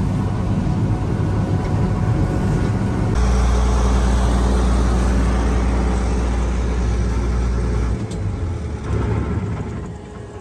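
Fiat 3350 combine harvester running at work, its engine and threshing machinery making a steady mechanical drone. The sound changes abruptly about three seconds in to a heavier low hum, shifts again near eight seconds, and grows fainter near the end.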